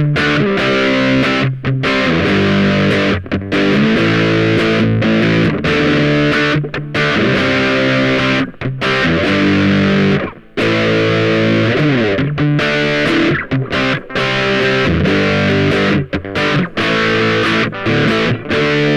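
Ibanez GAX30 electric guitar played through a high-gain overdrive pedal: heavily distorted chords and riffs. The sound cuts off sharply in many short gaps between phrases, where the noise gate closes.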